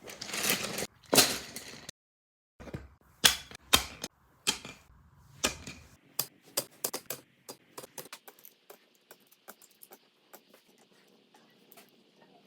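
A cat sneezing twice, then wooden pencils clattering down and rolling, a quick run of sharp clicks that thins out into scattered small ticks.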